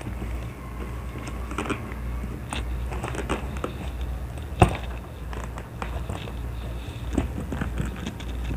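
Zipper being pulled closed around a packed soft fabric suitcase, with short rasping strokes and rustling as the bag is handled, and one sharper click about four and a half seconds in. A steady low hum runs underneath.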